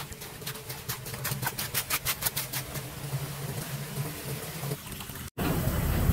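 Gloved hands scraping and pulling wet leaves and debris off a metal street-drain grate in shallow floodwater, with a quick run of clicks, about six a second, for about two seconds. Shortly before the end a cut brings in a louder steady rush of churning water.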